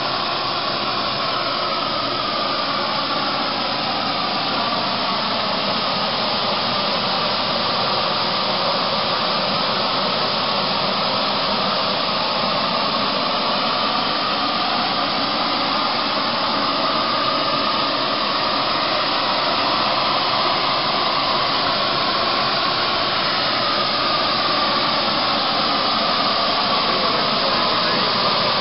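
Hose-fed gas torch burning with a big blue flame, a loud steady hiss, as it heats the hub of a large engine flywheel; the tone wavers slowly as the flame is moved.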